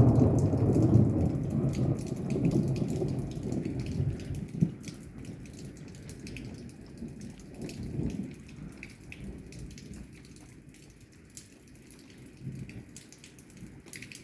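A long roll of thunder, loudest in the first two seconds and dying away over the next few, with a fainter rumble about eight seconds in. Rain patters steadily throughout.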